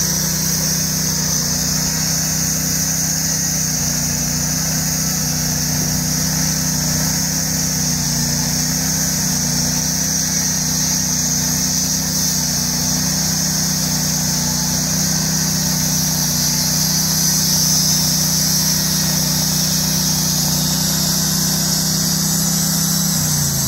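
Honda petrol engine of a Norwood portable bandsaw mill running steadily at full throttle while the blade cuts through a large log. Near the end the engine speed drops as the throttle is let off.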